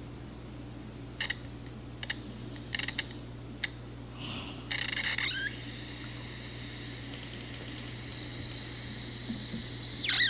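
Wooden planchette scraping in short strokes across a talking board, dragging with a lot of friction. There is a longer scrape about five seconds in and a louder one at the very end, over a low steady hum.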